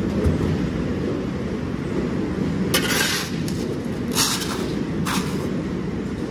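A steel shovel scrapes across a concrete floor, picking up dirt, in three short scrapes about three, four and five seconds in, over a steady low rumble.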